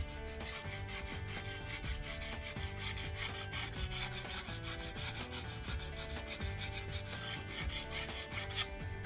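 80-grit sandpaper rubbed by hand over the curb-rashed alloy rim of a car wheel in rapid, even back-and-forth strokes, grinding down deep scratches. The strokes stop shortly before the end.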